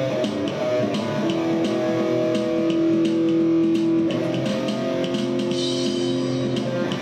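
Music: guitar-led, with long held notes over a steady light beat.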